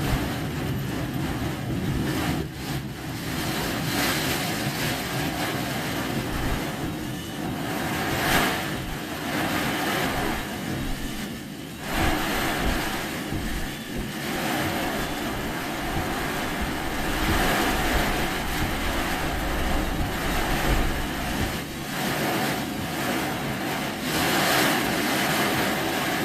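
Car driving, a steady rush of engine and road noise with a hissing wash over it that rises and falls in level.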